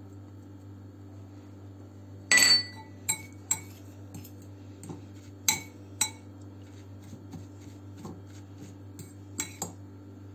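Metal spoon clinking against a glass mixing bowl while stirring salt into crumbled cheese. The loudest is a single ringing glass clink about two seconds in, followed by lighter, irregular clinks.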